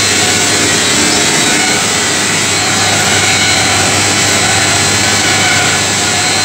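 Industrial drum sawdust dryer running, its belt drive and pulley turning: a steady, loud machine noise with a low hum underneath.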